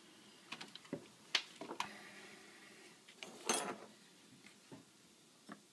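A few small clicks and knocks of handling on a workbench, with a brief rustle or scrape about three and a half seconds in, against quiet room tone.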